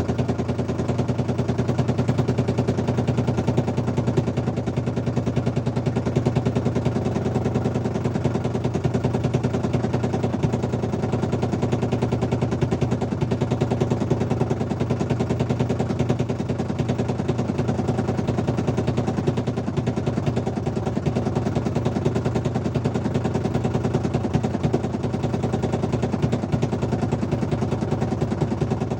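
Small engine running steadily with a fast, even, rattling beat: a knock that is put down to loose bolts on the counterweight.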